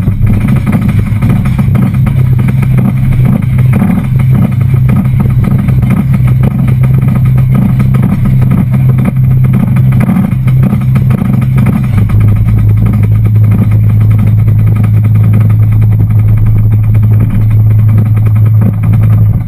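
Roller coaster train being hauled up the chain lift hill: a loud, steady low hum from the lift chain and its drive with a constant rattle, dropping slightly in pitch about twelve seconds in as the train nears the crest.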